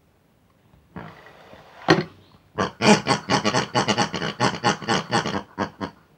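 A fast run of short pig-like grunts and oinks, several a second, voicing the toy pig characters. It comes after a brief hiss and a sharp knock about two seconds in.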